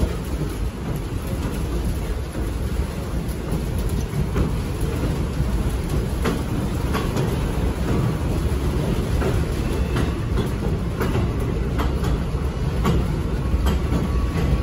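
MTA R160 subway train running along an elevated station platform: a steady rumble of wheels on rail that builds over the first few seconds as the cars draw level. Sharp clicks come through at short, uneven intervals as the wheels cross rail joints.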